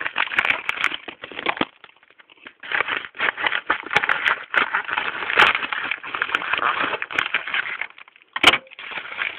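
A package being opened by hand: plastic and cardboard packaging crinkling and crackling with many small clicks, pausing briefly about two seconds in, with a sharp snap near the end.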